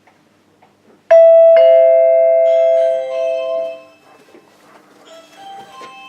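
Doorbell chime sounding two notes, ding-dong, high then low, starting about a second in. The notes ring out and fade over about three seconds.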